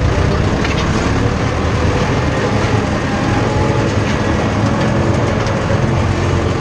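Tractor diesel engine running steadily under load, heard from inside the cab while pulling a three-row ridger to hill up potato rows.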